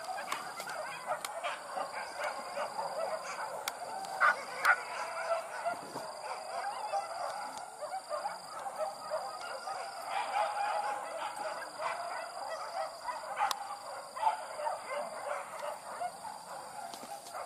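A pack of hunting dogs yelping and baying together while chasing a wild boar: a dense, overlapping clamour of short high calls, with a few louder yelps about four to five seconds in.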